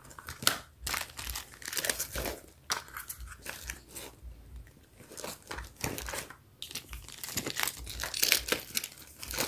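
Plastic wrappers and small cosmetic items crinkling and rustling as they are handled, with irregular clicks and taps, while they are packed back into a handbag.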